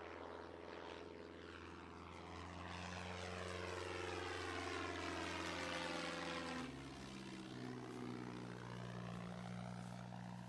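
Single-engine propeller plane flying over: a steady engine drone that grows louder, then drops in pitch about six and a half seconds in as it passes overhead and moves away.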